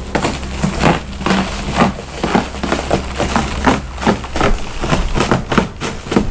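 Plastic stretch wrap on a boxed machine being cut and pulled away by hand, crinkling and crackling irregularly.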